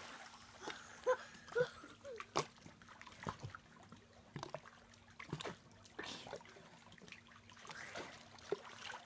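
Faint, irregular splashing and lapping of pool water as a child paddles across a swimming pool, with a faint steady hum underneath.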